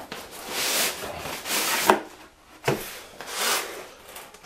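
Cardboard rubbing on cardboard in several long swishes as a snug white outer sleeve is slid off a boxed hand plane, with a couple of short knocks about two and three seconds in as the box is handled on the wooden workbench.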